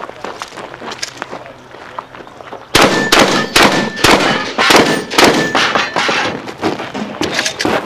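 Shotgun firing a rapid string of loud shots close to the microphone, starting about three seconds in. The action cycles between shots, throwing out spent shells.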